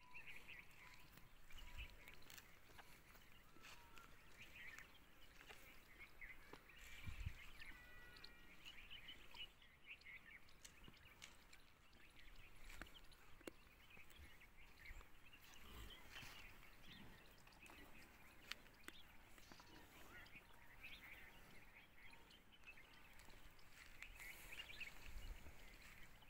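Faint outdoor ambience with scattered bird chirps throughout and a few soft low thumps.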